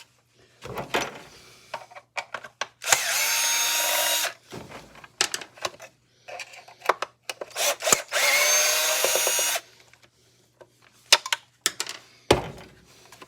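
Cordless drill-driver running in two bursts of about a second and a half each, whining up to speed at the start of each, backing screws out of a miter saw's housing. Clicks and knocks of handling come in between.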